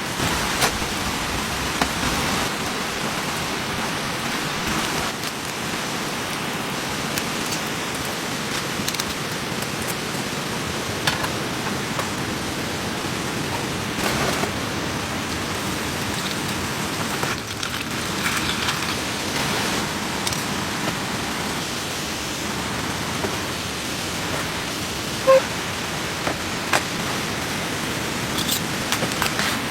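Steady rain falling, with scattered drops ticking on a surface. One short, sharp click stands out near the end.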